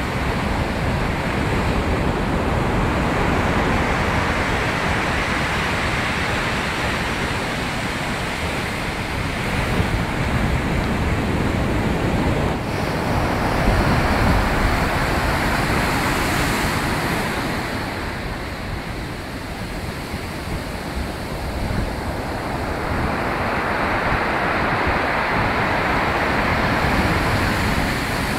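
Rough sea breaking heavily on a shingle beach: a continuous rush of surf that swells and eases every several seconds as the waves come in and wash back.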